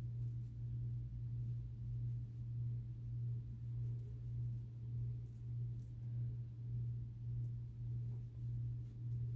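A steady low hum, gently swelling and fading about once a second.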